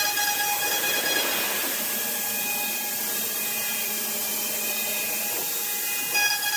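CNC router cutting wood: a steady cutting hiss with a low hum, under background music.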